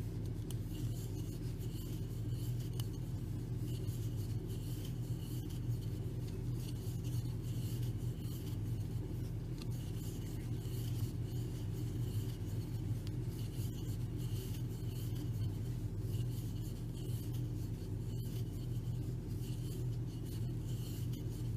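Faint, irregular scratching and rubbing of yarn drawn over a 6 mm crochet hook as double crochet stitches are worked, over a steady low hum.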